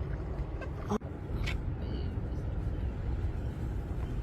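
Steady low rumble of moving water on a snorkeler's camera, with a couple of faint clicks a second or so in.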